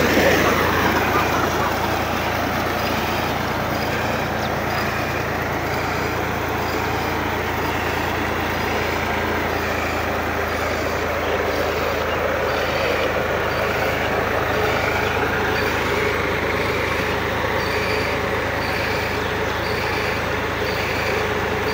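Tractor diesel engine running steadily under load, driving a tubewell pump by a flat belt off its rear tyre, with water gushing from the pump's outlet pipe into the tank.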